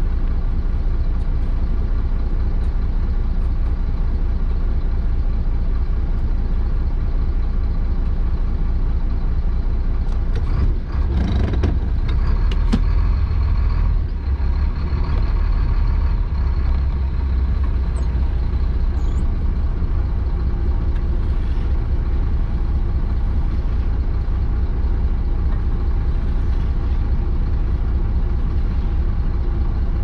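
Chenglong concrete mixer truck's diesel engine running steadily, a low rumble heard from inside the cab. About a third of the way in there are a few short clanks.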